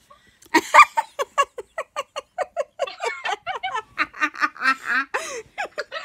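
Laughter: a long run of short, quick vocal pulses, about five a second, starting about half a second in.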